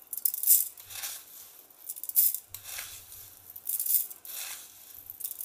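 Steel spoon scooping granulated sugar from a steel bowl and tipping it into a steel jug of cut mango: spoon scraping and clinking on the steel and sugar pattering in, several spoonfuls about a second apart.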